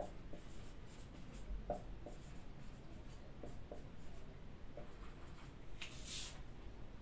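Whiteboard marker writing on a whiteboard: faint, scattered short strokes and squeaks. One longer, louder stroke comes about six seconds in.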